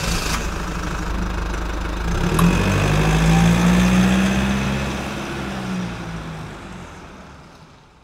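Car engine running, revving up about two seconds in and settling back, then fading away.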